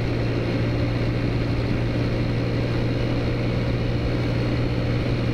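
The small four-stroke 100cc engine of a Taotao Zummer scooter, running at a steady cruising speed with a constant low drone. Steady wind and road noise rush over the microphone.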